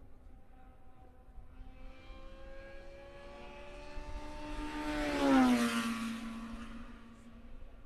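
A race car passing at speed. Its engine note builds, peaks a little over five seconds in, drops sharply in pitch as it goes by, then fades away. Fainter engine sound from other cars on the circuit runs underneath.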